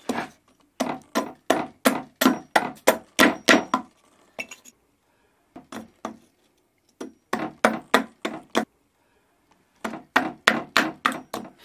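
Small hatchet chopping and shaving a beech-wood rake tooth against a wooden block: a run of sharp wooden knocks, about three a second, broken by short pauses.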